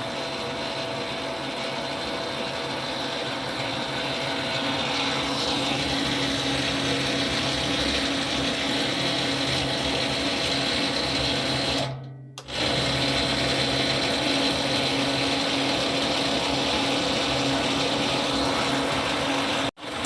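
Circle-cutting machine running with a steady mechanical hum and clatter. The sound cuts out briefly about twelve seconds in and again near the end.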